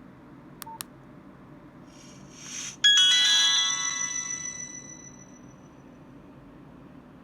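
Nokia 105 phone playing a ringtone through its small loudspeaker: a rising whoosh, then a bright chime of several notes that rings out and fades over about three seconds. Two short clicks come just before, under a second in.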